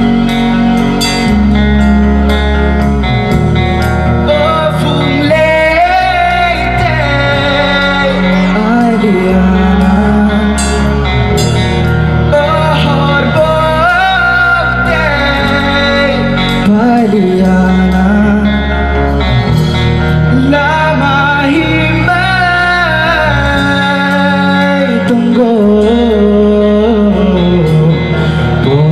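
Live band music: a male voice singing over electric guitar, electric bass, keyboard and drum kit.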